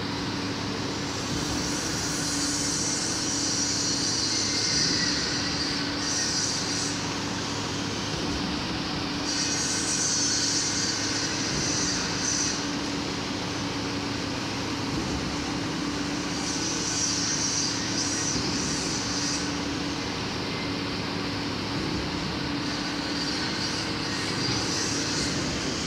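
Steady construction-machinery noise: a continuous low engine drone with high hissing that swells and fades every few seconds.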